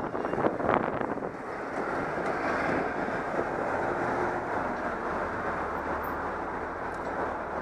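Motorcycle riding slowly in traffic: air rushing over the camera microphone, with the bike's engine running underneath. Gusty buffeting dies down about a second in, and from about halfway a low engine hum comes forward as the bike slows.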